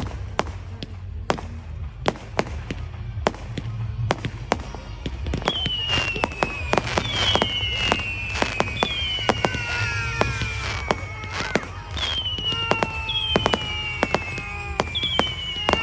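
Fireworks going off: a rapid, irregular string of sharp bangs and cracks throughout. From about five seconds in, a series of whistling fireworks joins them, each a high whistle falling in pitch over a second or two.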